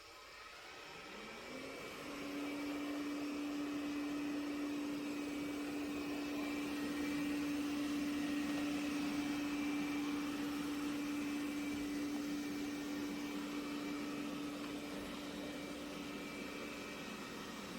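Roborock Qrevo Curv S5X robot vacuum's motor starting up: a hum rising in pitch over about a second, then running steadily with an even rushing noise.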